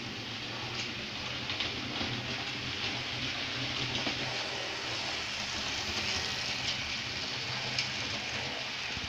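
Electric model train running on its track: a steady rolling rattle of wheels on the rails over a low motor hum, with faint scattered clicks.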